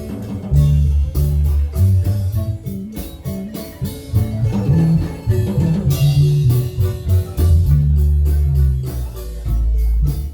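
Marimba ensemble playing with electric bass and drum kit, with a steady beat.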